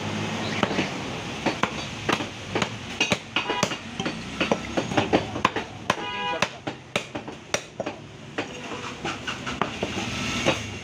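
Butcher's cleaver chopping beef on a wooden log chopping block: quick, uneven blows, several a second, thinning out over the last couple of seconds. A steady low hum runs underneath.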